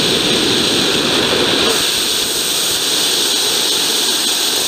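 Unlit 3D-printed LOX/ethanol liquid rocket engine spraying propellant out of its nozzle under full main-valve flow, a loud steady rushing hiss. The igniter has been put out by the high flow, so the engine is venting without lighting. About two seconds in the rumble drops and the hiss grows brighter.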